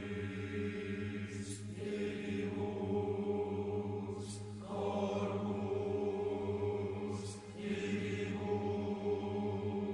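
Background music: a droning chant-like choral piece, a low held tone under slowly shifting sung voices, with a soft airy swell about every three seconds.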